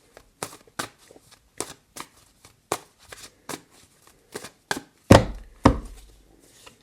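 Tarot cards being handled and set down on a table: a run of sharp, irregular taps, about two a second, with two louder thuds about five seconds in.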